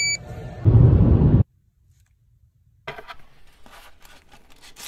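A checkout barcode scanner beeps once, then a loud low rumble cuts off sharply about a second and a half in. From about three seconds in, sandpaper rubs in quick back-and-forth strokes on the plastic frame piece of a Mares Genius dive computer, stripping its red paint down to bare plastic.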